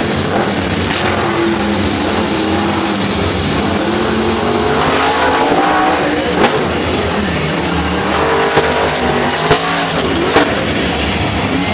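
Monster truck engine revving hard, its pitch rising and falling as it drives, with several sharp bangs in the second half.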